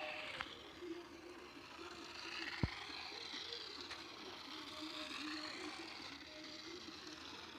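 Small electric motor of a toy RC car whining, its pitch rising and falling as it speeds up and slows, with one sharp thump about two and a half seconds in.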